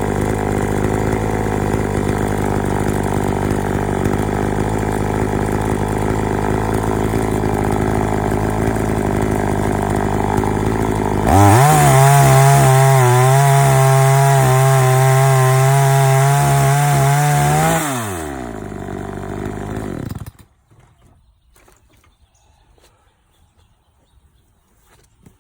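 Gas chainsaw on a chainsaw mill cutting lengthwise through a log under load. About 11 seconds in, it suddenly revs higher and steadier as the chain runs free, which is typical of the bar breaking through the end of the cut. Near 18 seconds the revs wind down to idle, and the engine shuts off about two seconds later.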